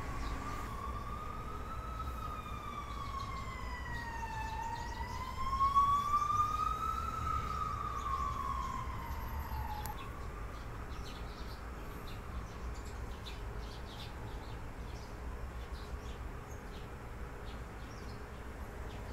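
An emergency vehicle's siren wailing, its pitch rising and falling slowly twice and fading out about halfway through, over a steady low street hum. Sparrows chirp faintly in the second half.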